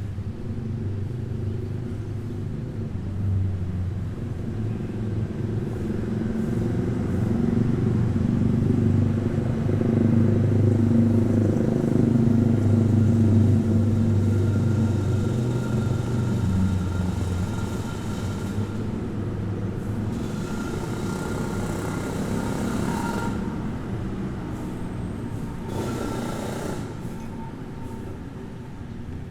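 City street traffic: engines of cars and motorcycles running as they pass, a low rumble that builds to its loudest around the middle and then eases off.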